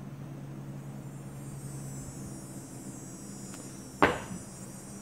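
A steady low hum runs throughout, with one sharp knock, as of something set down on a hard bench, about four seconds in.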